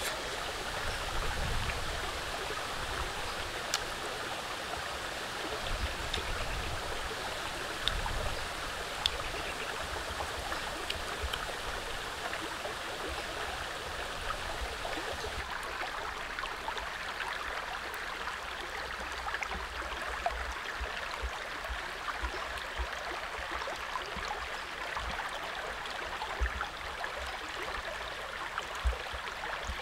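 A shallow stream running steadily over rocks, with a few faint clicks.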